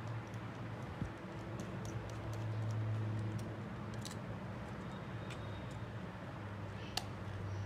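Scattered light clicks and ticks of small tools and parts being handled in a smartphone repair, over a steady low hum. The sharpest click comes near the end.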